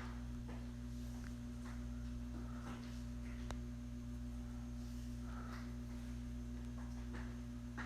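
Arno Ultra Silence Force electric fan running with a steady motor hum, with a few faint short ticks and rustles over it.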